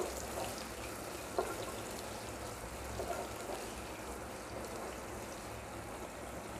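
Sliced onions sizzling steadily in hot oil in a pressure cooker while frying toward golden brown, stirred with a wooden spatula that gives a couple of light knocks.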